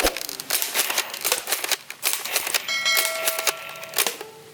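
A rapid, irregular run of clicks and clacks, with a short ringing ding about three seconds in.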